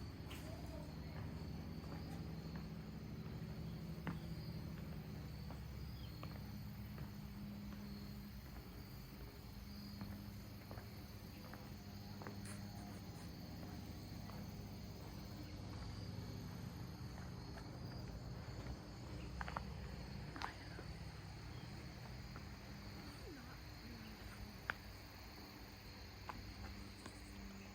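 Crickets chirping in a steady, even, high-pitched trill over a constant low background rumble, with scattered faint clicks and taps.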